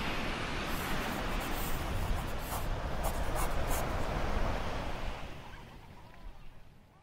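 Sea waves washing on the shore, a steady surf rush that fades out over the last couple of seconds.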